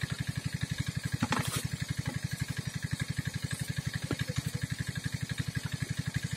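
A small engine running steadily with an even, rapid chugging of about ten beats a second. A short swish of noise cuts in about a second and a half in.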